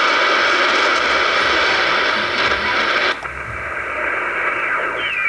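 Shortwave receiver audio: a weak, low-modulation broadcast buried in heavy static hiss, which cuts off abruptly about three seconds in as the receiver is tuned away, leaving quieter noise. Near the end a falling heterodyne whistle comes in as the tuning crosses another carrier.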